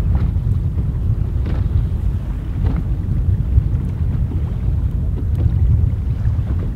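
Wind buffeting the microphone as a steady low rumble, with a few faint clicks.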